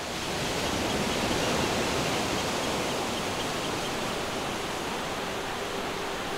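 A steady rushing noise, even across low and high pitches, that swells in just before the start and holds, with faint high chirps repeating regularly over the first few seconds.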